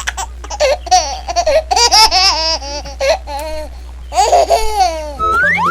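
High-pitched, sped-up cartoon giggling and chattering voice effect, with quick up-and-down pitch swoops, over a steady low hum. It ends with a rising whistle-like glide.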